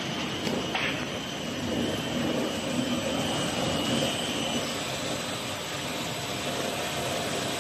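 Steel coil cut-to-length line running, with steel sheet feeding through onto its belt conveyor: a steady mechanical whirr with a faint high whine that fades out about halfway through.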